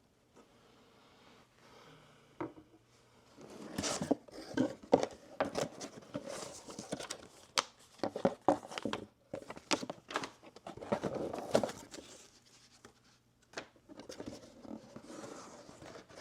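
Packaging being handled and torn open by hand: irregular rustling, crinkling and tearing with sharp clicks. It starts faintly and gets busier about three or four seconds in.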